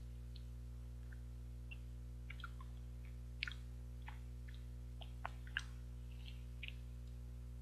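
Close mouth sounds of eating an ice cream bar: scattered small wet smacks and clicks of lips and tongue on the bar, over a steady low hum.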